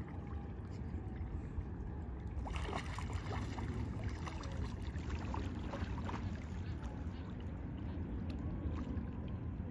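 Water splashing and sloshing from breaststroke swimming in a shallow lake, growing louder from about two and a half seconds in, over a steady low rumble.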